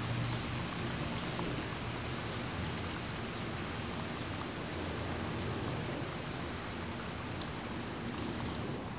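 Steady, even hiss like falling rain, with faint scattered ticks and a low hum underneath.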